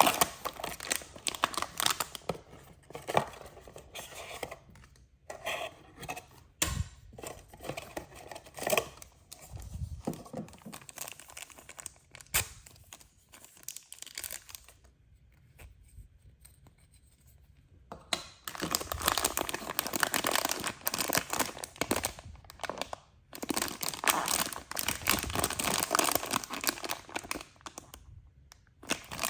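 Toy packaging being torn open and crinkled by hand, in irregular bursts of tearing and crinkling with a short quiet pause around the middle, then a longer run of dense crinkling.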